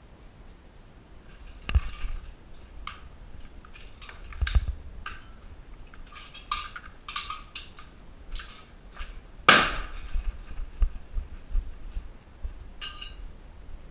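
Irregular sharp clicks and knocks, with three louder cracks about two seconds in, midway, and about two thirds of the way through.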